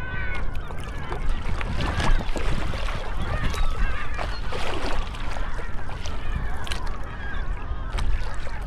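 A large flock of seagulls calling over one another in dense, overlapping cries, over a steady low rumble.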